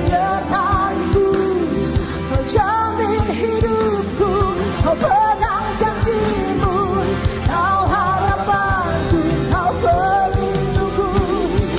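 Live worship band playing a pop-rock song, with drums and bass under a group of singers singing in Indonesian; the sung notes waver in pitch.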